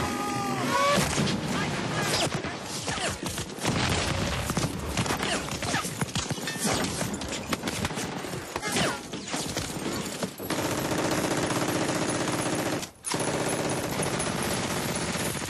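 Dense machine-gun and rifle fire, rapid irregular cracks and impacts packed close together, with men shouting. From about ten seconds in, the firing merges into a steadier din with a low drone beneath it.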